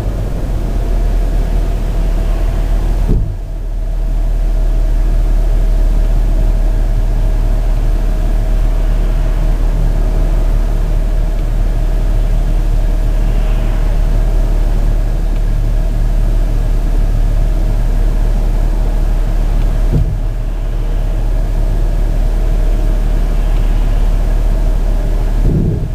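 Steady engine and road noise inside a moving Jeep Grand Cherokee: a heavy low rumble with a steady hum on top, dipping briefly about three seconds in and again near twenty seconds.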